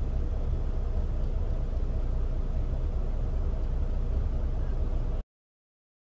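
Steady low drone of a semi truck's engine and tyres heard from inside the cab while driving, cutting out to silence for about a second near the end.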